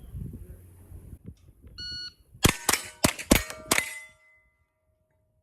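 Shot timer's start beep, then a fast string of about six rimfire rifle shots, each ringing a steel plate, the ring of the last one fading out over a second or so.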